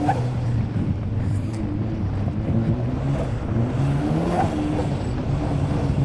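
Turbocharged 1.8-litre Mazda BP four-cylinder engine of an Exocet, heard from its open cockpit, pulling steadily at low revs, its note rising a little about four seconds in.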